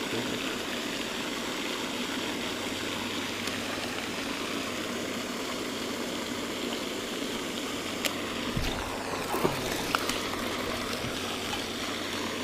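Floating pond aerator fountain, its spray falling back onto the water in a steady rushing splash. A few faint clicks come about eight to ten seconds in.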